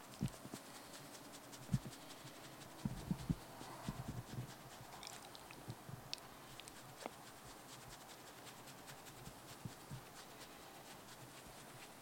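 A dog having its head scratched: soft thumps and rustling of the hand and the dog shifting on bedding, mostly in the first four or five seconds, with faint small sounds from the dog itself.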